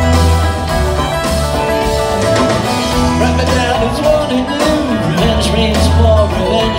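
A live band playing a bluegrass-style song, heard from the audience: banjo and guitars over bass and drums.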